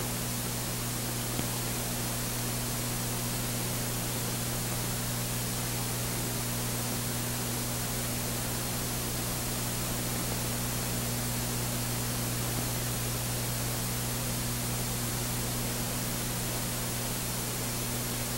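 Steady hiss and low hum of an old film soundtrack with no other sound, apart from one faint click about a second and a half in.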